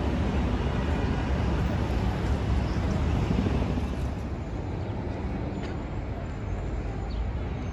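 City street traffic: a steady rumble of cars and other vehicles, easing slightly about halfway through.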